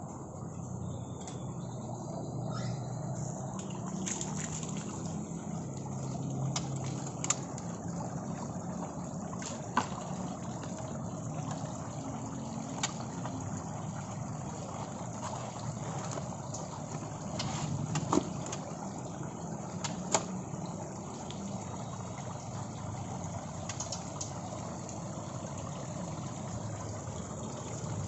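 Garden fountain water trickling and splashing steadily, with a few sharp clicks and knocks about 7, 10, 18 and 20 seconds in.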